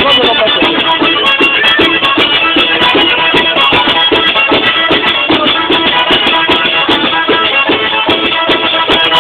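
Southern Italian tarantella played live: a large frame drum (tamburello) beats a fast, steady, driving rhythm under a continuous folk melody.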